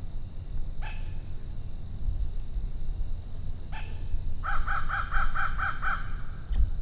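A bird calls in the woods: one call about a second in, another near four seconds, then a fast run of about seven notes.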